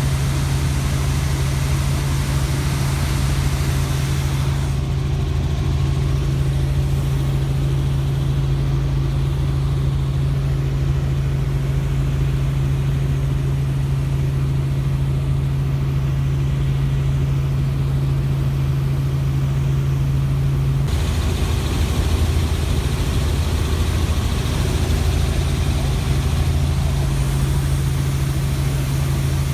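Helicopter running with a steady engine and rotor drone dominated by a strong low hum. The sound changes abruptly about five seconds in and again about twenty seconds in.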